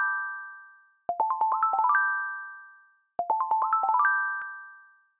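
Intro jingle of bell-like chime notes: a run rings out and fades, then two more quick rising runs of about eight notes each, each ringing out and dying away.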